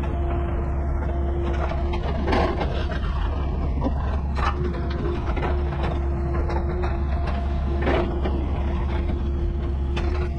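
Mini excavator's diesel engine running steadily under load, with a steady whine from the machine that drops out for a couple of seconds. There are a few knocks and scrapes as the grading bucket drags and levels soil.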